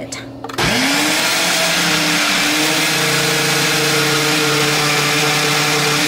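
A Ninja countertop blender starts on its Single Serve program about half a second in and spins up within a fraction of a second. It then runs steadily, pureeing thick chicken congee in the single-serve cup.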